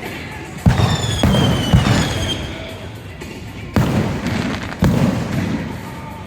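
Fireworks display: five sudden booms, each followed by a short rumble and crackle, the first three close together and two more about a second apart later, over music, with a couple of falling whistling tones after the first bang.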